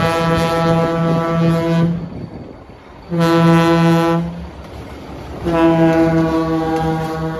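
Diesel locomotive air horn blowing three blasts: one that cuts off about two seconds in, a shorter one about three seconds in, and a third starting past five seconds and still sounding, with the locomotive's engine rumbling underneath.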